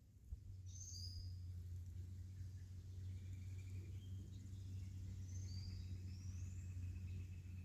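Songbirds chirping and whistling, with a longer trill in the second half, over a steady low rumble; a single click sounds just after the start.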